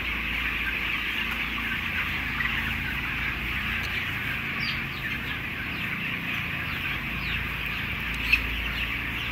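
A dense, continuous chorus of thousands of 16-day-old broiler chickens peeping and cheeping together, with a low steady hum underneath. One louder chirp stands out about 8 seconds in.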